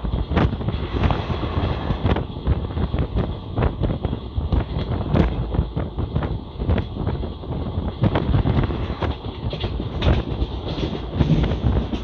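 A train running along the track, heard from aboard: a steady low rumble with many irregular sharp knocks as the wheels clatter over the rails.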